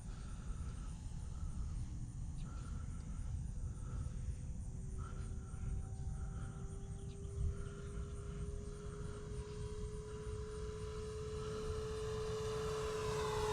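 Electric motor and propeller of a radio-controlled Cessna 152 model (E-flite Power 60 motor) whining in flight. The whine appears about four seconds in and grows louder and slightly higher as the plane comes closer, over a steady rumble of wind on the microphone.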